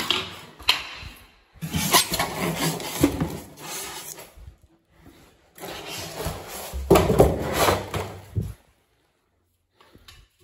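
Rubbing and scraping handling noise as a square is set against the toilet frame's pipe stubs to mark them for cutting. It comes in three stretches, each lasting from about a second to a few seconds.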